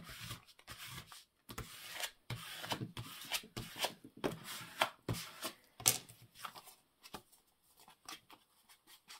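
Paper rustling and being rubbed by hand in quick short strokes, busiest for the first six seconds, then thinning to scattered light rustles and taps.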